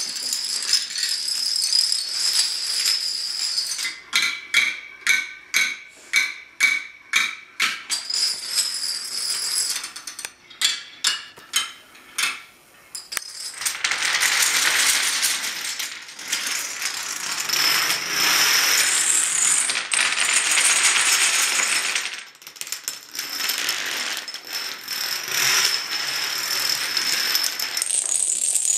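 Hundreds of small plastic dominoes toppling one after another in a long chain reaction, a rapid continuous clatter. In places the chain breaks into separate sharp clacks, two or three a second, before the dense clatter picks up again.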